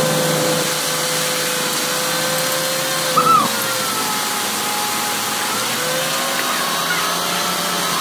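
Concrete delivery truck's engine and machinery running steadily while wet concrete discharges down the chute onto the slab. A brief high squeak about three seconds in.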